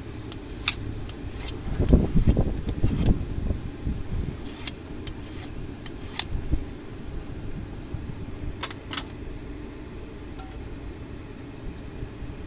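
Scattered light metallic clicks and taps of a steel workpiece and tongs against the anvil while the chisel's corners are worked down, over a steady low hum, with a rougher low rumbling stretch about two seconds in.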